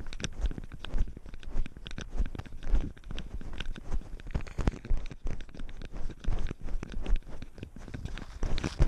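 A cat's paws crunching and scraping on gravel as it walks, picked up very close by a camera strapped to the cat, with irregular knocks about every half second.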